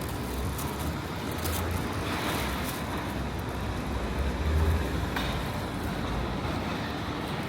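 Busy city street ambience: steady road traffic noise with a low rumble that swells about four and a half seconds in.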